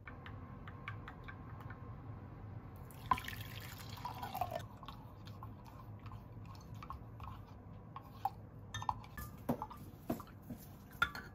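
Quiet kitchen handling of glass: liquid splashing and pouring into a glass measuring jug, with a wooden spoon stirring and scattered light clinks on the glass. A splashy stretch comes a few seconds in, and sharper clinks cluster near the end.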